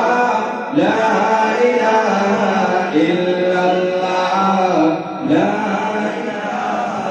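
A man singing a naat unaccompanied into a microphone, in long melodic phrases with held, ornamented notes, pausing briefly for breath about a second in and again about five seconds in.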